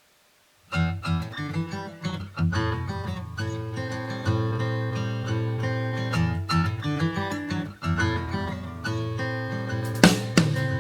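Background music: strummed acoustic guitar starting just under a second in, with drums coming in near the end.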